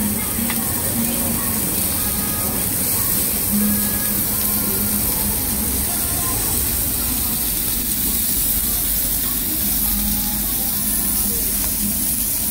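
Slices of beef sizzling on a hot stone grilling slab: a steady hiss.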